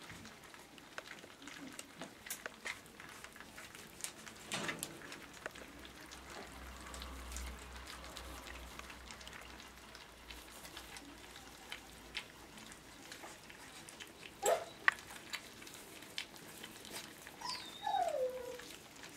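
Wirehaired dachshund puppies eating soft food from a bowl, a steady run of small clicks and smacks from their mouths. Near the end a puppy gives a short squeak that falls in pitch.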